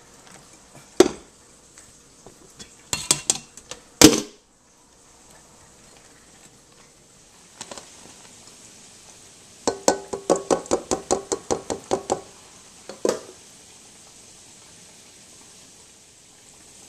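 Stainless steel pots and a mixing bowl knocking and clanking while drained, boiled potatoes are handled. A few sharp knocks come in the first four seconds, then a quick run of about a dozen ringing metal taps near the middle.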